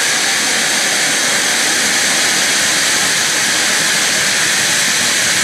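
Ground firework fountain spraying a tall column of sparks, giving a steady, loud hiss that holds at an even level throughout.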